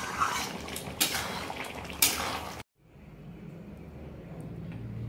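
Metal spoon clinking and scraping against a pot of curry, with a few sharp knocks. The sound cuts off abruptly about two and a half seconds in, leaving a quieter low hum.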